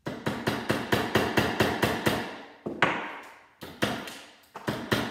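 A hammer tapping lightly on a small plastic switch box held in a bench vise. A quick run of taps, about six a second, comes for the first two and a half seconds, then a few louder, spaced blows, knocking the box's top off to get at the silver contacts inside.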